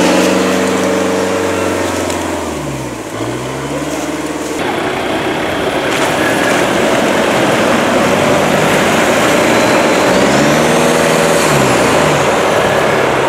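Engines of modified off-road trophy vehicles revving hard under load as they crawl through mud and over rough ground. The engine pitch dips and climbs back twice, and after a sudden change a few seconds in the sound becomes louder and noisier.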